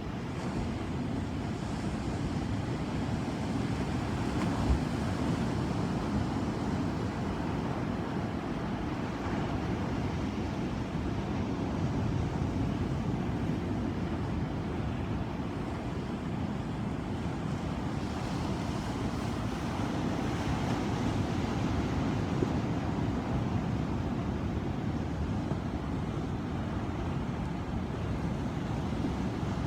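Ocean waves breaking and washing ashore: a steady rushing that swells and eases slowly. Two brief low thumps stand out.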